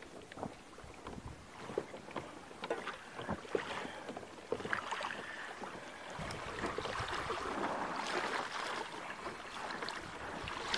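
Water lapping and splashing against a kayak, in short irregular splashes, with a steadier rushing noise setting in about halfway through.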